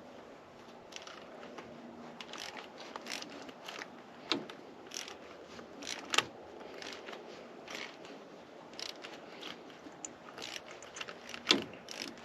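Harbor Freight gold-plated hand ratchet clicking in short, irregular strokes, turning a swivel socket to tighten a new oil pressure sender switch into a tractor engine.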